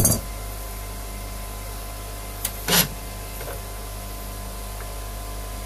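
Bronze cap of a boat's seawater strainer being unscrewed by hand, with one short scraping knock about three seconds in, over a steady low hum and hiss.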